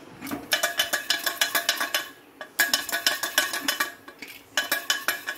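Aluminium pressure cooker and its metal lid rattling and scraping in three bursts of rapid metallic clicking as the lid is taken off and the cooker is handled, with popcorn inside.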